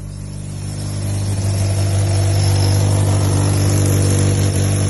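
Toyota 4A-GE 20-valve 'blacktop' four-cylinder engine running steadily, getting louder over the first second and a half and then holding. The engine is still to be fully tuned.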